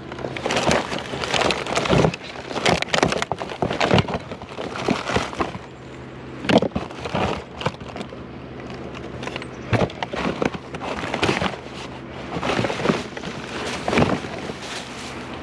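Irregular knocks, rattles and clatter of discarded junk being handled and moved, over a steady low hum.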